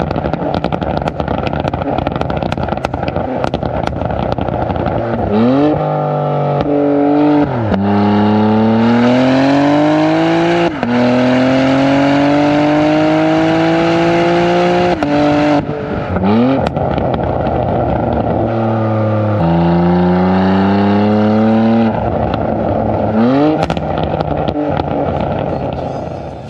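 BMW X3 M's S58 twin-turbo inline-six through a Valvetronic Designs valved exhaust with OEM downpipes, accelerating hard. The engine note climbs again and again and drops sharply at each upshift, with a few short quick rises in between. It fades out near the end.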